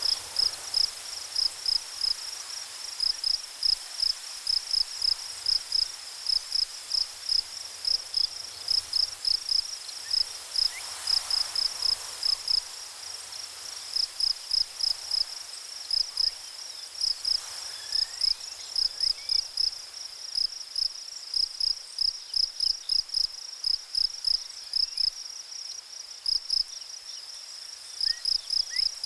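A cricket-like insect chirping steadily in a high pitch, about three chirps a second, with brief pauses now and then. A few faint short rising whistles sound underneath.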